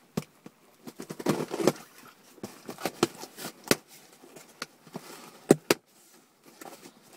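Small cardboard package being handled and opened by hand: irregular rustling and scraping of cardboard with sharp clicks and knocks, the loudest about five and a half seconds in.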